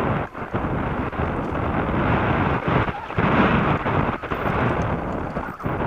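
Wind buffeting the microphone of a camera on a mountain bike riding fast down a rough dirt trail, with the tyres and bike rattling and jolting over stones.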